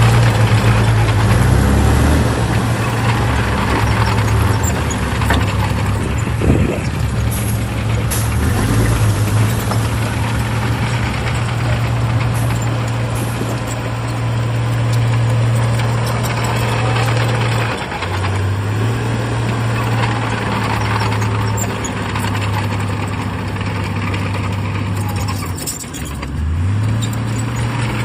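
Heavy diesel earthmoving engine running steadily at working revs. Its note sags briefly twice and picks back up.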